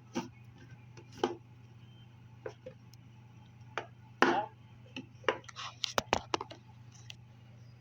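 Small objects being handled and set down: scattered short knocks and taps, busiest between about five and six and a half seconds in, over a steady low hum.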